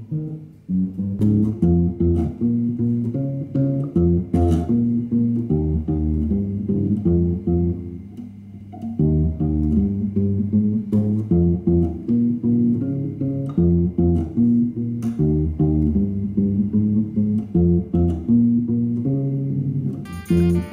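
Electric bass guitar played fingerstyle, loud: a running line of low plucked notes that breaks off briefly about eight seconds in, then resumes.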